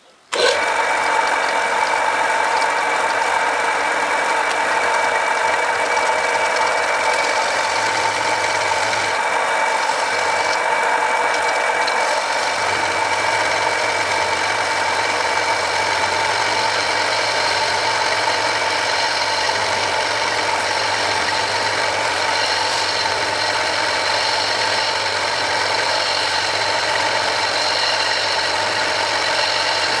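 Home-built lathe with a 1 hp single-phase motor running under power, its 160 mm three-jaw chuck spinning: a steady mechanical whine with several even tones over a rushing noise, cutting in abruptly just after the start.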